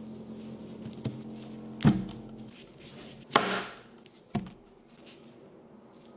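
Four sharp knocks on a hard surface while a dragon fruit is handled, the loudest about a third of the way in, followed by a brief rustle.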